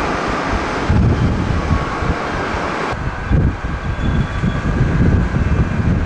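Strong wind buffeting the microphone in irregular low gusts, over a faint rush of airliner jet engines. The sound changes abruptly about three seconds in.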